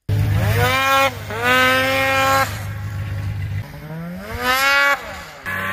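Polaris 800 two-stroke snowmobile engine revving hard under acceleration. The pitch climbs sharply, holds high, eases off, then climbs and holds again about four seconds in before dropping back.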